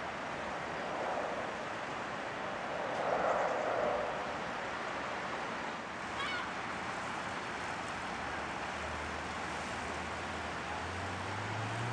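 Steady rushing outdoor noise, with a louder swell about three seconds in; a low engine hum comes in during the last few seconds and grows, and a brief high call sounds about halfway.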